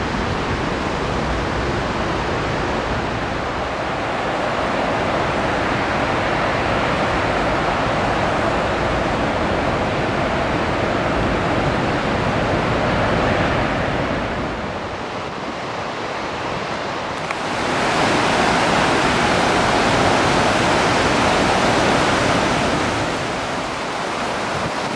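Steady rushing of whitewater in a river gorge, with some wind on the microphone. It dips a little, then jumps louder about seventeen seconds in.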